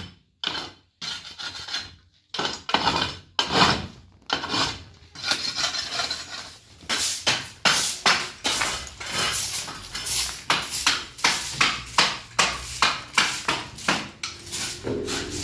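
Old plaster being scraped off the foot of a wall in a few irregular strokes, then a straw hand broom sweeping plaster rubble across a floor in steady strokes, about two a second.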